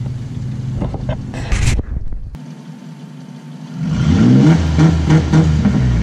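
Ford Ranger pickup engine running steadily. After a brief break about two seconds in, it comes back louder, revving repeatedly with pitch rising about twice a second.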